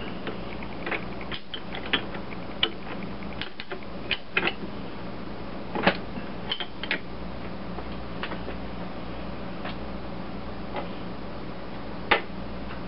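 Sharp metal clicks and clanks from handling a small metal lathe's tailstock drill chuck and tools while a drill bit is changed, over a steady low machine hum.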